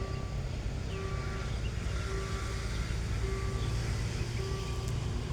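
Steady low engine rumble with a repeating two-note electronic warning tone sounding over it at about one cycle a second, like a railway level-crossing signal.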